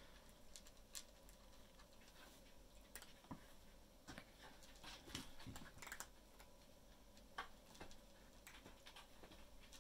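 Near silence broken by scattered faint clicks and soft taps, a small flurry about four to six seconds in: cats' paws and claws on a bare wooden floor.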